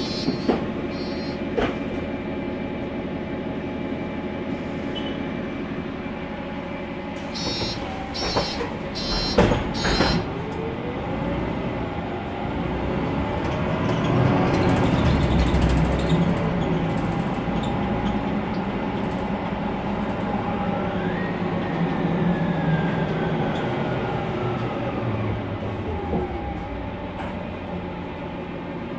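Mercedes-Benz Conecto NGT city bus heard from inside the cabin while under way, its OM 936G turbocharged CNG engine and Voith DIWA automatic gearbox running with whines that rise and fall in pitch as it speeds up. A cluster of sharp rattles and knocks comes about 7 to 10 seconds in.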